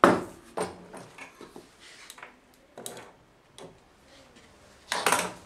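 Knocks and clatter of tools and metal being handled and set down on a wooden workbench, the loudest knock right at the start, followed by several lighter ones and a brief rustle near the end.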